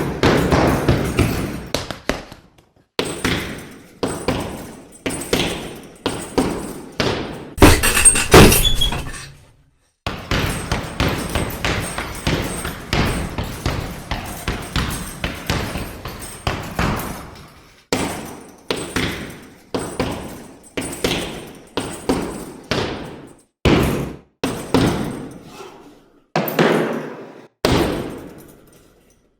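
A rapid series of boxing punch sound effects: sharp hits, each with a short fading tail, coming several a second in bursts with brief pauses, and a louder, denser cluster about eight seconds in.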